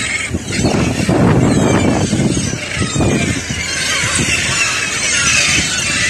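A large flock of gulls calling, many cries overlapping throughout. A low rumble runs under them, loudest in the first half.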